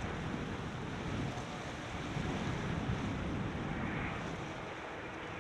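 Wind buffeting the microphone in gusts over a steady wash of sea surf breaking on the shore.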